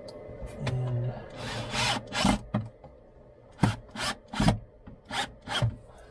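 Scraping and rubbing, then a run of sharp knocks and taps, about five in two seconds, as hands handle a battery and its metal strapping and angle-iron mount.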